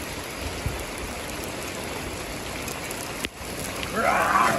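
Steady rain falling on a swimming pool and wet concrete deck, an even hiss. About four seconds in, a short louder burst rises over the rain.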